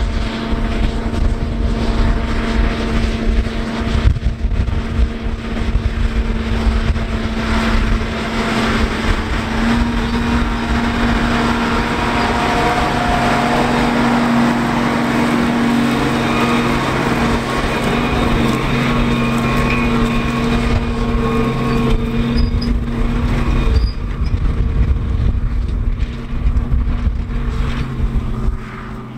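International Harvester 6588 2+2 tractor's diesel engine running steadily under load, pulling a tillage implement through corn stubble, with low rumble from wind on the microphone.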